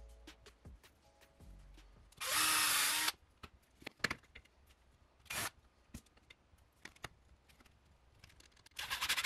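A power drill-driver runs once for about a second. Light clicks and taps of screws and plywood parts being handled come before and after it.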